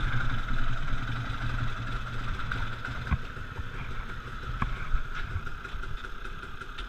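KTM enduro motorcycle engine running at low revs as the bike rolls slowly, heard from a handlebar-mounted camera, growing a little quieter; a couple of light knocks about three and four and a half seconds in.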